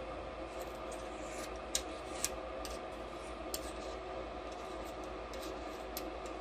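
Scattered small metallic clicks and light scraping as the locking nut on a CO2 laser's aluminium mirror mount is worked loose by hand, over a steady hum.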